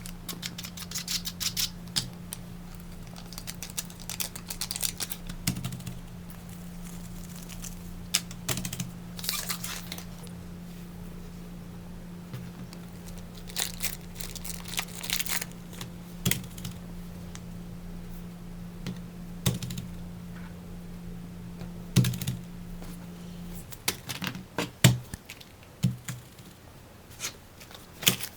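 Plastic fidget toys being handled: scattered clicks and short rustling bursts, over a steady low hum that stops about 23 seconds in.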